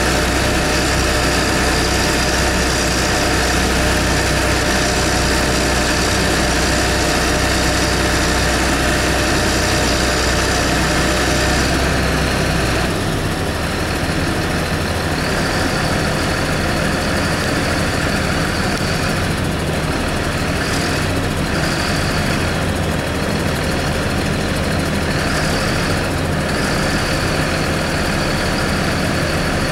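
Heavy diesel truck engine running steadily. Its deep low hum drops away about 13 seconds in, while the engine keeps running.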